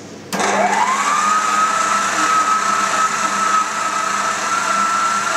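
FIRST planetary stand mixer switched on about a third of a second in: its motor whine rises over about a second, then runs steady, kneading a bowl of pork sausage mince.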